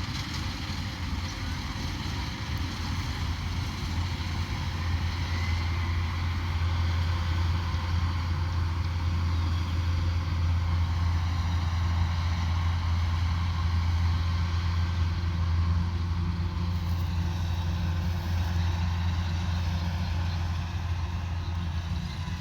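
Combine harvester running steadily with a deep, even engine hum, a little louder from about four seconds in.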